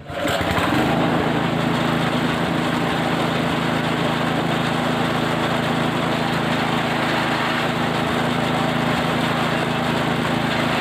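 Small engine of a cattle-feed chopper machine running steadily; it cuts in suddenly at the start.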